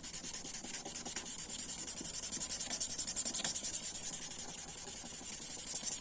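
800-grit sandpaper rubbed by hand in quick, light back-and-forth strokes over the translucent plastic scale of a Victorinox Swiss Army knife: a fast, even scratching, the fine-grit stage of smoothing the scale after the printed logo has been sanded off.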